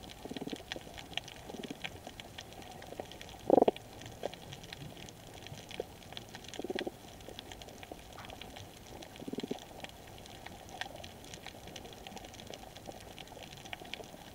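Underwater coral reef sound: a male damselfish gives short pulsed calls several times, the loudest about three and a half seconds in, calling to defend his territory and attract mates. Other damselfish call in the background. Under it all runs the continuous high crackling of snapping shrimp.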